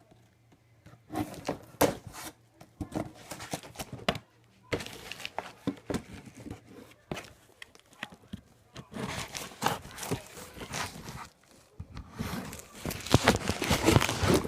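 A cardboard box from Nike being opened and handled by hand: tape and cardboard tearing, paper and packaging crinkling and rustling, with scattered knocks. The handling grows busiest and loudest near the end.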